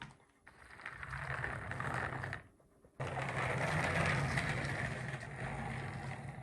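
Many marbles rolling and clattering down a wooden track together, a dense continuous rattle. It runs for about two seconds, stops briefly, then starts again suddenly about three seconds in and goes on until near the end.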